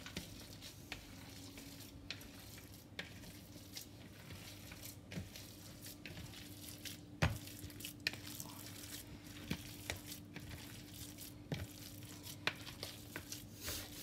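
Faint squelching and scattered soft clicks of hands working a raw meat-and-vegetable filling in a bowl, over a steady low hum.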